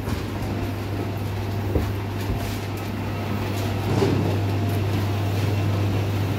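Steady low machinery hum inside a passenger boarding bridge at an aircraft stand, growing a little louder about four seconds in, with a few soft knocks.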